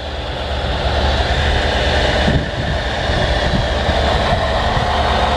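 A Ford F-350's 460 V8 gasoline engine idling steadily, a deep low rumble that grows louder over about the first second and then holds.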